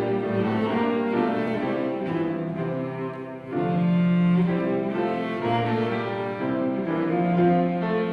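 Cello and grand piano playing together, the cello holding long bowed notes over the piano. The music dips briefly about three and a half seconds in before the next phrase swells.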